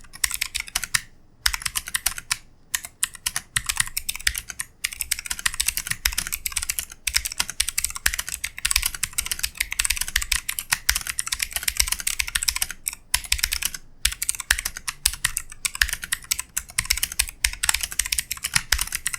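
Typing on a MotoSpeed CK104 mechanical keyboard with blue switches, knockoffs of Cherry MX Blue: fast runs of sharp, crisp key clicks, paused briefly now and then.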